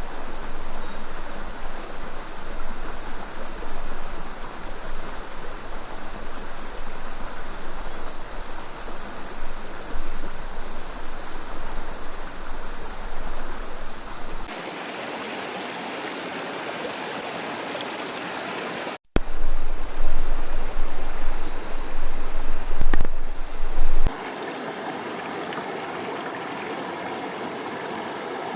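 Rushing river water, a steady loud rush with no distinct events, changing abruptly in level and tone a few times as the recording cuts between spots.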